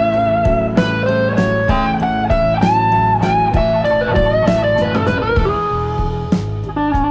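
Background music: electric guitar playing bluesy lines with sliding notes over a steady drum beat.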